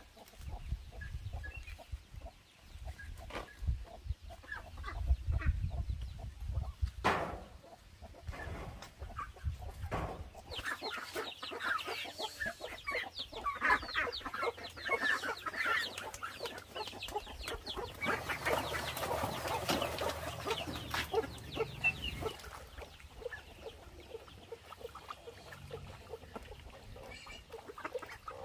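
Chickens clucking, thickest through the middle as a dense run of short, quick clucks. Scattered knocks and handling sounds come before it.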